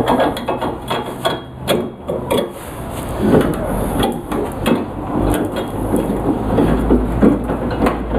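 Steel parts of a body-shop frame-straightening tool clanking and knocking as a steel bar is worked into a hole in its support to lock it in place. The knocks and clinks come irregularly, several a second.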